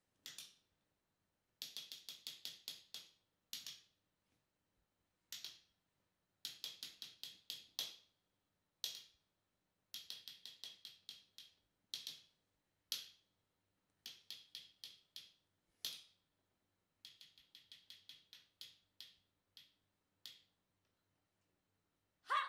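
Bursts of rapid, sharp clicks or taps in quick runs, broken by short silences and repeated a dozen or so times.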